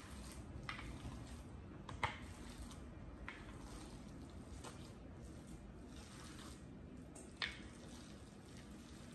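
Hands squeezing and kneading a raw ground turkey and sausage mixture in a bowl: faint, wet squelches every second or so, the loudest about two seconds in and again near seven and a half seconds.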